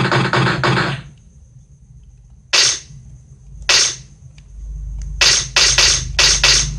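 Gunshot sound effects: a rapid automatic-fire burst that stops about a second in, then two single shots about a second apart, then a quick string of five shots near the end. A low hum sits under the later shots.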